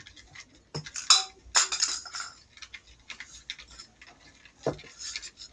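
A utensil clinking and scraping against a container as soap and water are stirred for slime, in irregular clicks and short scrapes, busiest in the first half.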